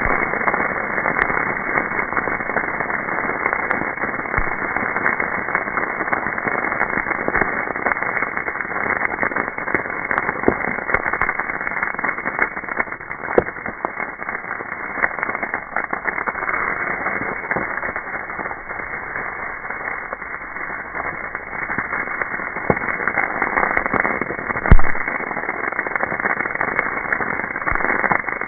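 Brush fire of dry branches and leaves burning, slowed down so that its crackling becomes a dull, muffled rush with scattered pops. One loud pop comes near the end.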